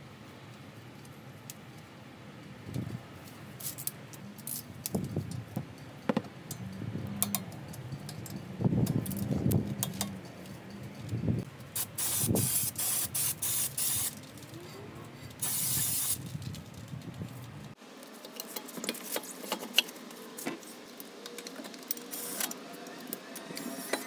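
Aerosol brake cleaner sprayed onto a front brake caliper and rotor in several short hissing bursts, then one longer burst. Before it come scattered metallic clicks and knocks from tightening the caliper slide pin bolts with a click-type torque wrench.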